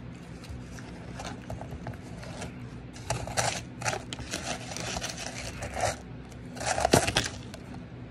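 A metal spoon scraping and digging into shaved ice in a plastic tub. Light crunches come first, then a run of louder crunchy scrapes from about three to six seconds in, and the loudest crunch comes near seven seconds.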